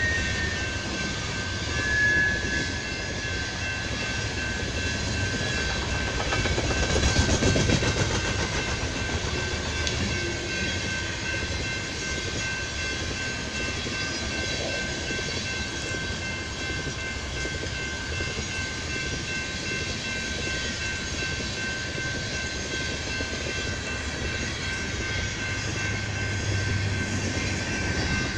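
Freight train of coal hopper cars rolling steadily past on the rails, with continuous wheel and rail noise that swells louder for a moment about seven seconds in. A steady high tone from the activated grade-crossing signal's bell runs under it.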